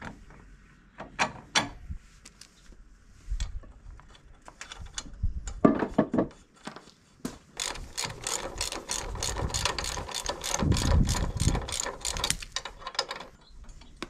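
Ratchet wrench clicking on the axle bolt of a zero-turn mower's front caster wheel: a few scattered clicks and knocks, then a fast, even run of clicks for about five seconds in the middle.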